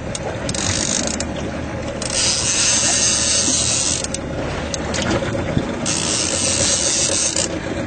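Big-game fishing reel being cranked hard to wind in line on a fighting fish: a ratcheting click in two long spells of winding, over a steady low rumble.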